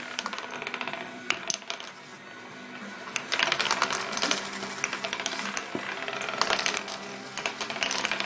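Several wooden nickels (thin wooden discs) spinning on a wooden tabletop, with a fast rattling whir as they wobble down and repeated sharp clicks as they tip over and clatter flat.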